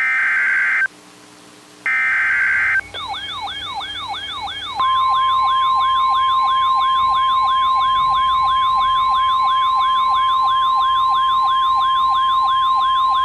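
The last two bursts of an Emergency Alert System digital header, each a harsh electronic data burst about a second long. They are followed by a siren-like alert tone that sweeps down in pitch about three times a second. A few seconds in, a steady single-pitch weather-radio alert tone joins the sweeps, and both carry on loudly until the warning's spoken message begins.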